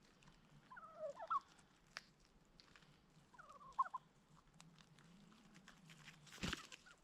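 Domestic turkey gobbling twice, each a short rapid warbling call, about a second in and again about three and a half seconds in. Near the end comes a brief noisy rustle, and faint scattered clicks run throughout.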